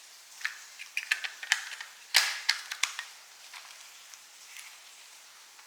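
Hard plastic clicks and taps of an NP-F battery and its adapter plate being handled, with one sharper snap about two seconds in.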